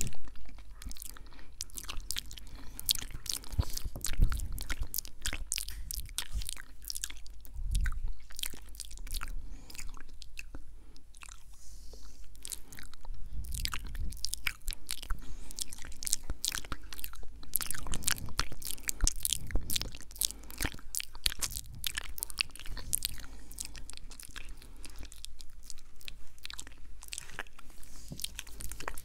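ASMR mouth sounds: a dense, irregular run of wet tongue and lip clicks and smacks.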